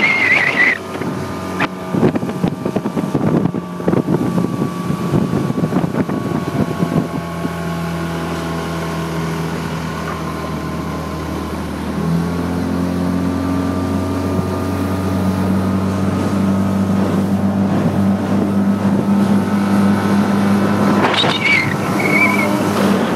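Small motorboat's engine running steadily under way, with wind buffeting the microphone. About halfway through the engine speeds up, its pitch rising a little and the sound getting louder.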